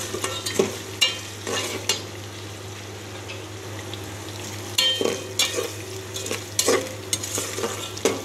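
Small pieces of chicken frying in oil in a metal pot, sizzling as they brown, while a slotted metal spatula scrapes and turns them against the pot in quick strokes. The stirring pauses for a couple of seconds in the middle, leaving only the sizzle, then starts again about five seconds in.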